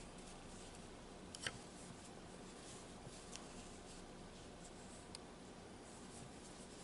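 Faint room tone with a few light clicks from an aluminium crochet hook and yarn being worked by hand, the sharpest click about a second and a half in.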